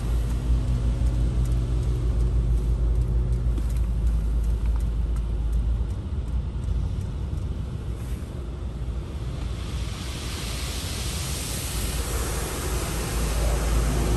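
PDQ Tandem Surfline automatic car wash heard from inside the car: a low rumble with a steady machine hum for the first few seconds, easing in the middle. About ten seconds in, a hiss of water spray striking the car builds up and keeps going.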